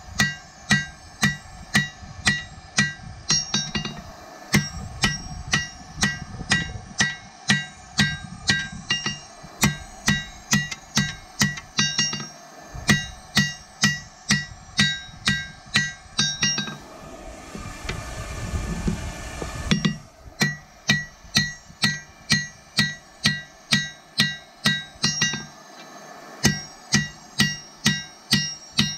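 Hand hammer blows on a red-hot steel sword blank lying on an anvil, about two strikes a second, each with a bright metallic ring. The hammering pauses for about three seconds a little past the middle, where a steady rushing noise is heard, then starts again.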